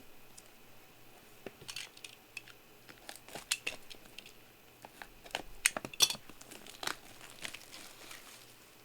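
Packaging crinkling and rustling in irregular short crackles and clicks as trading card packs are opened and the cards handled, busiest in the middle of the stretch.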